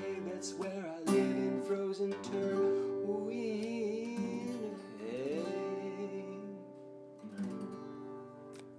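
Music: acoustic guitar strumming with a singing voice. The chords ring on and the sound dies away over the last few seconds.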